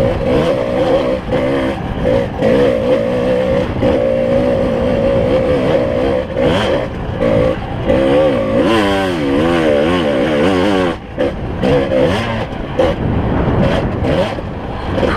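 Kawasaki KDX 220R single-cylinder two-stroke engine being ridden on a dirt trail. Its note rises and falls with the throttle, cutting in and out, and warbles rapidly about halfway through. Knocks and clatter from the bike run through it.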